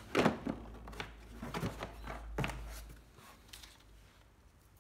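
Handling noise of a 12V cordless drill/driver: several sharp plastic clicks and knocks in the first two and a half seconds, then quiet. The drill's motor is not running.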